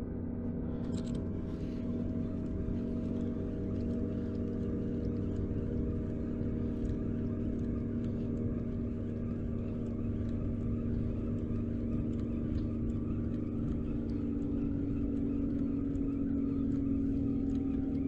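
A steady engine drone, a low hum with a clear pitch that shifts slightly and grows a little louder in the last few seconds.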